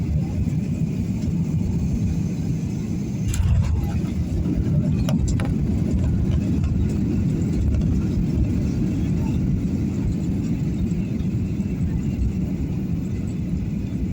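Airliner cabin noise during landing: a steady low rumble, with a sudden thump about three seconds in and a couple of sharp knocks about five seconds in.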